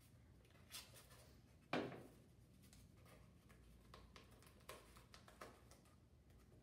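Near silence with faint handling of paper and adhesive tape: a few soft rustles and one brief, louder crinkle about two seconds in, as tape is worked around a paper nose cone.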